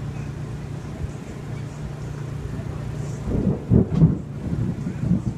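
Gusts of wind buffeting the microphone as a storm front approaches, coming in about three seconds in, over a steady low mechanical drone.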